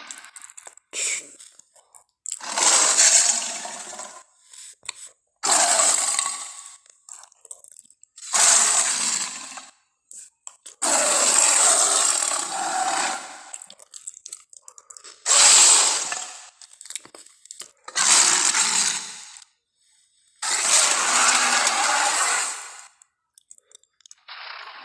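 A run of Tyrannosaurus rex sound effects: seven noisy, rasping bursts, each one to two and a half seconds long, with short silences between them.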